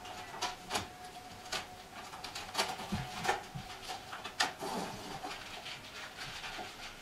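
Irregular clicks, taps and rustles of a cardboard box and its packaging being handled, with a sharper knock about four and a half seconds in.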